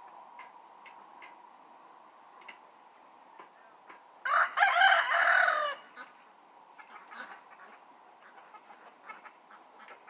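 A rooster crows once, a loud pitched call about four seconds in that lasts about a second and a half. Faint short clicks and clucks from the flock sound around it.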